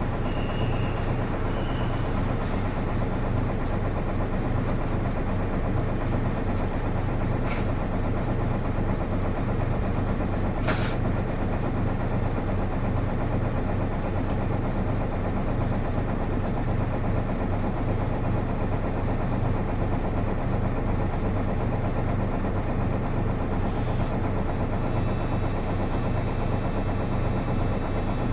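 Nissan Diesel Space Runner RA city bus (PKG-RA274MAN) diesel engine running steadily from inside the bus, an engine note that differs from other RA buses of its type. There is a sharp knock about 7 seconds in and another near 11 seconds.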